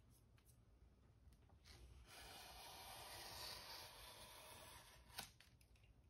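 Razor blade of a utility knife slicing through the overhanging edge of Arches oil paper, drawn along the wood of a panel: a faint, steady scratchy hiss of about three seconds starting about two seconds in, followed by a sharp click.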